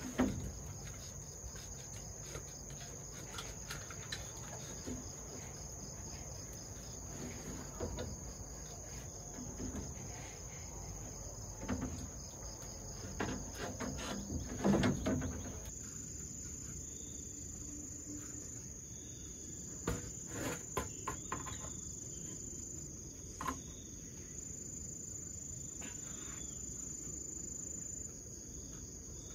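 Insects chirring in a steady high drone, with scattered knocks and thumps from bamboo poles and roof sheets being handled on the frame, the loudest about fifteen seconds in.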